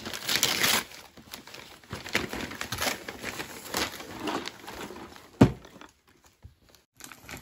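Gift wrapping paper tearing and rustling as a present is unwrapped, then one sharp thunk about five seconds in as the cardboard toy box is set down, followed by a second of near silence.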